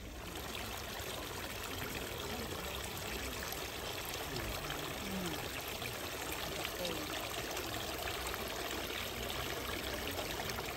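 Water trickling and splashing steadily from a row of metal dragon-head spouts into a stone basin.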